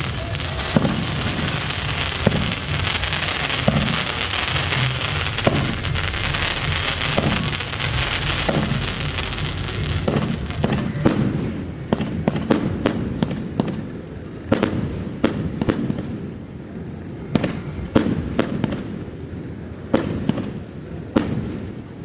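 Fireworks display: for about ten seconds a dense, continuous crackling barrage with scattered bangs, then it thins out to separate sharp bangs and pops at irregular intervals.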